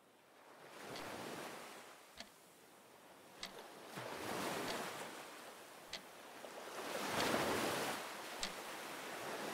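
Surf breaking on a sandy beach, swelling in and falling back in waves and loudest about seven seconds in. A sharp, regular tick repeats about every second and a quarter over it.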